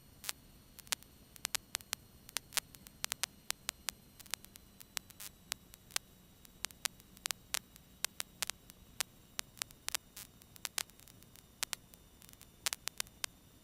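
Faint static crackle on the cockpit intercom and radio audio feed: irregular sharp clicks, several a second, over a faint low hum.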